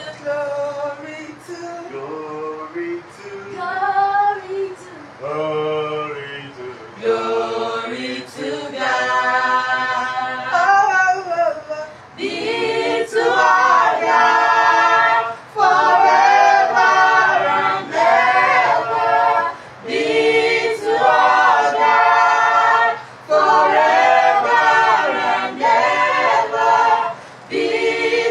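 A small group of women and men singing a worship song unaccompanied, in harmony. The singing starts softer and thinner and becomes fuller and louder about halfway through.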